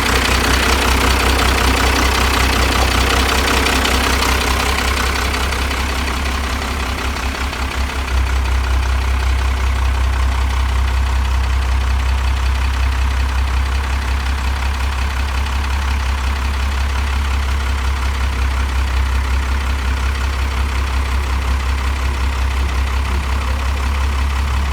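First-generation Dodge truck's Cummins diesel engine idling steadily. Its note dips slightly a few seconds in, then comes back louder and deeper about eight seconds in.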